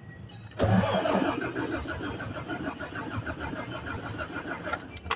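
Starter cranking a Mitsubishi Fuso 6M70 inline-six diesel with a fast, even pulsing for about four seconds, then stopping without the engine catching: the engine's hard-start fault.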